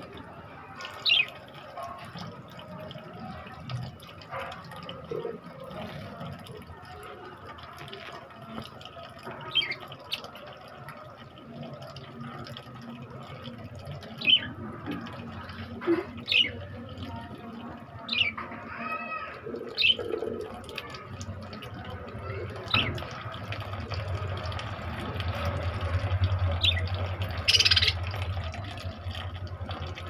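Water trickling and dripping from a garden hose into a budgerigar cage, running a little louder in the last several seconds. Budgies give short, sharp chirps every few seconds, with one brief warbling call about two-thirds of the way through.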